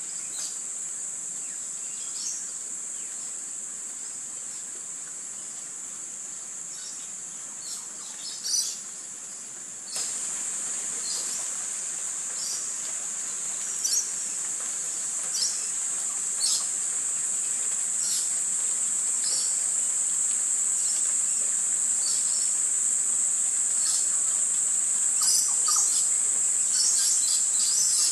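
Steady high-pitched insect drone with short bird chirps every second or two, coming more thickly near the end.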